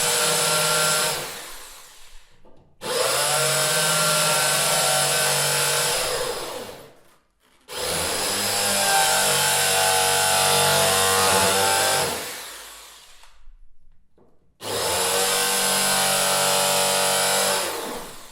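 Electric drill run in bursts: the motor comes up to speed abruptly, runs steadily for three to four seconds, then coasts down slowly once the trigger is let go. This happens three times after a first run ends about a second in.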